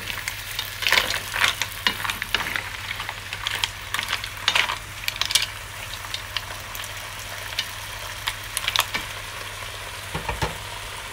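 Raw shrimp and mussels being stirred with a wooden spatula in an enamelled pot, over a steady sizzle of garlic butter. Shells and spatula knock and click irregularly, most in the first half.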